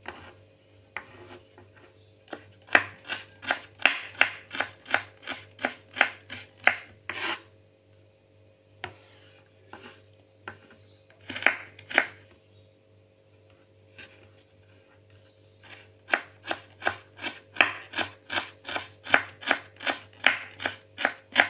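Kitchen knife chopping fresh ginger on a wooden cutting board: quick, even strikes about three a second in two long runs, with a pause of a few seconds in the middle broken by a couple of strikes.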